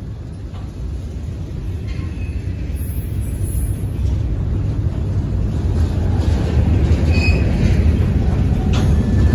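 Freight train's covered hopper cars rolling past on steel wheels: a steady rumble of wheels on rail that grows louder, with a brief high squeal about seven seconds in and a short clank near the end.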